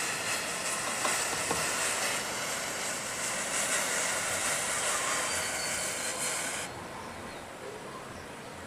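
Rows of matchsticks catching one after another, the match heads flaring in a continuous fizzing hiss with a few faint crackles. The hiss drops off suddenly about three-quarters of the way through, leaving a quieter hiss.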